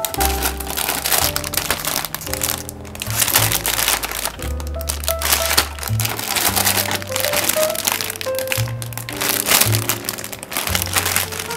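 Plastic bags crinkling as bagged plastic model-kit runners are handled and lifted out of the box, over background music with a bass line and keyboard notes.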